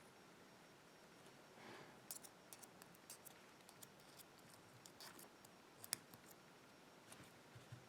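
Faint, scattered small clicks and ticks of tiny brass lock pins and a metal tool being handled, the sharpest click a little before six seconds in.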